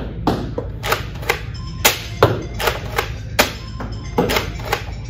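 A Nerf Elite 2.0 Warden DB-8 pump-action blaster being primed and fired over and over, two darts per shot: a run of sharp plastic clacks and thwacks, about two or three a second, spaced unevenly.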